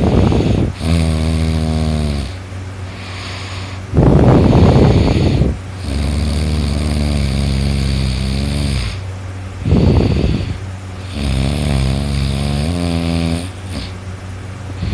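A person snoring loudly in three breathing cycles about five seconds apart, each a short, rough, noisy snort followed by a longer droning snore held on a steady pitch, over a steady low hum.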